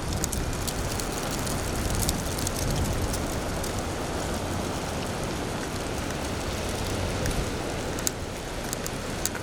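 Steady rushing noise of a strong wind storm, with a vehicle engine running low beneath it and scattered sharp clicks and snaps.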